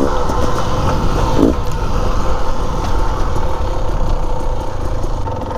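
Dirt bike engine running steadily under the rider as the bike moves along a dirt trail, with low wind rumble on the helmet-mounted microphone; the engine eases off a little near the end as the bike slows.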